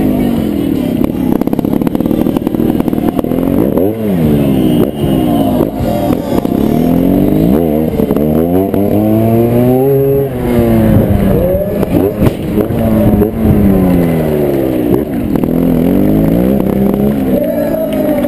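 Trials motorcycle engine heard close up from the bike itself, its revs rising and falling again and again as the throttle is worked, every second or two.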